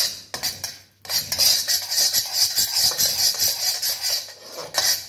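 Spatula scraping and stirring minced garlic and ginger around a wok in quick, repeated strokes. There are a couple of short scrapes at first, then near-continuous scraping from about a second in.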